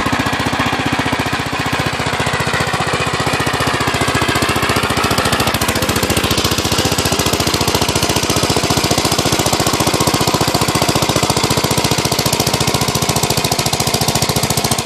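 Engine of a 1972 Gravely Super Convertible walk-behind tractor running steadily under load, driving a dog eater snowblower attachment that is throwing snow. The tone changes slightly about six seconds in.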